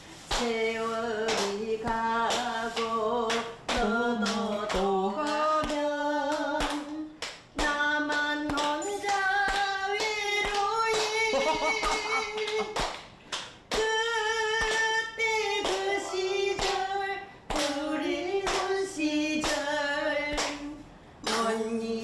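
An older woman singing a slow Korean song unaccompanied, with long held notes and short breaths between phrases. A group claps along on the beat throughout.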